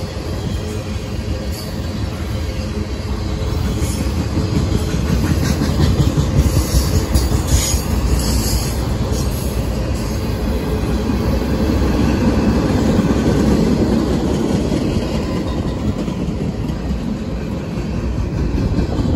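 Long mixed freight train of boxcars and tank cars rolling past close by: a steady rumble of steel wheels on rail, with a stretch of higher-pitched wheel screech around the middle.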